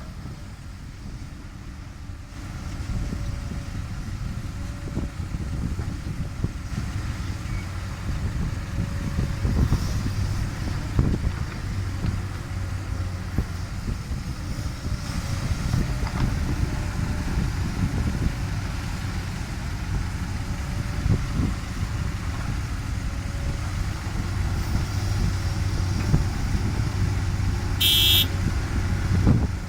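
Heavy diesel machinery running steadily, with scattered sharp knocks, typical of an excavator digging and loading soil. About 28 s in there is a short, high-pitched squeal or toot.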